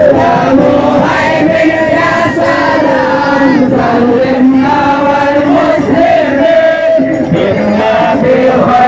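Music with many voices singing together, sung notes held and bending, over a steady crowd background.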